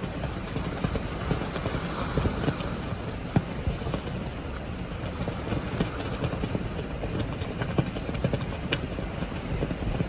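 Strong gusty wind rumbling on the microphone, with irregular sharp slaps and clicks from a flag slapping against its flagpole. The sharpest slaps come about three and a half seconds in and near the end.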